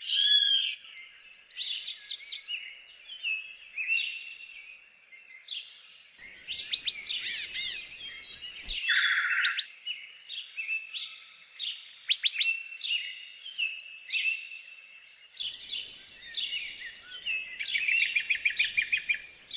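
A small songbird singing continuously: quick whistled notes, sweeps and fast trills in varied, repeated phrases.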